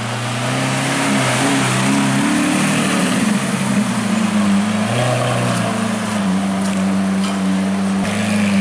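Lamborghini Aventador's 6.5-litre naturally aspirated V12 running at low speed in traffic. The engine note rises and falls a few times in the first three seconds or so, then holds steady near idle.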